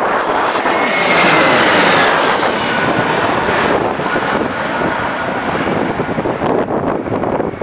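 An airliner flying low past on its landing approach: its engine noise swells to its loudest a second or two in, with a whine that falls in pitch as it goes by, then eases off. Gusty wind buffets the microphone near the end.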